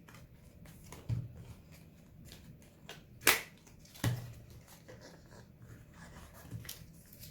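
A cube's packaging being opened by hand: scattered clicks, knocks and light rustling of a small box and its wrapping, with the sharpest knock about three seconds in.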